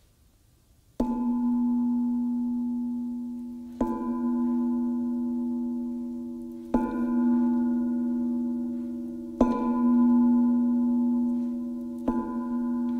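Singing bowl struck five times, about every three seconds, each stroke ringing on with a steady low tone and fading slowly. The first strike comes about a second in, after a moment of near quiet.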